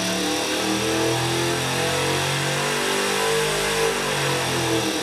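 Race-built test engine running under load on an engine dynamometer during a dyno pull, heard through a knock-detection box: a steady, loud, harsh mechanical drone with several shifting tones.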